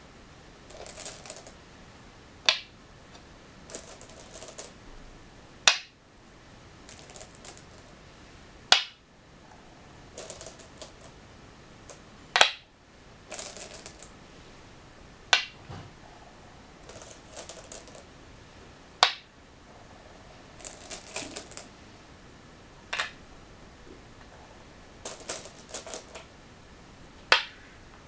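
Go stones placed one at a time on a wooden go board, eight sharp clicks about every three to four seconds. Before each click comes a short rattle of stones as a hand picks one from the bowl.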